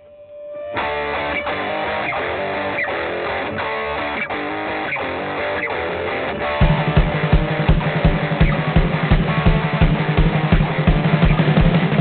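Background music: a guitar-led track starts about a second in, and a steady beat with bass and drums comes in about halfway through.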